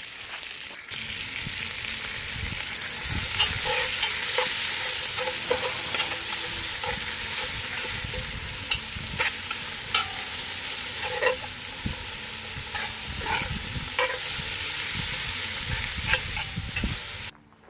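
Chopped onion and garlic sizzling in bacon fat in a Dutch oven, with short clicks and scrapes of a utensil against the pot as they are stirred. The sizzling starts abruptly about a second in and cuts off suddenly just before the end.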